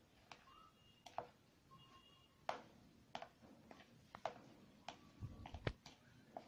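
A hand squeezing and kneading a soft minced chicken and mashed potato mixture in a plastic bowl: faint, irregular wet squelches and clicks, with a duller knock about five seconds in.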